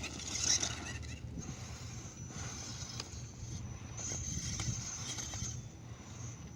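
Small RC crawler drivetrain running: a Holmes Hobbies Stubby Puller Pro brushless motor and sideways-mounted Injora transmission whining and humming, the high whine rising and falling with the throttle, with scattered light clicks and scrapes.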